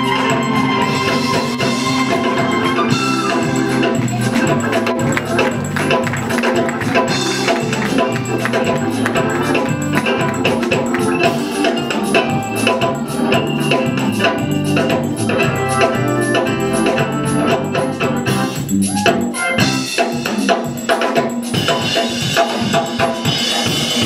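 Live band playing soul-gospel music, led by sustained organ chords over bass guitar and hand percussion. A trumpet holds a note in the first few seconds.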